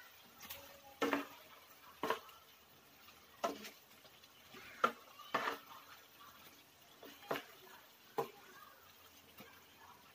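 A spatula stirring chunks of chicken, potato and carrot in a frying pan, with short scrapes and knocks against the pan coming irregularly about once a second.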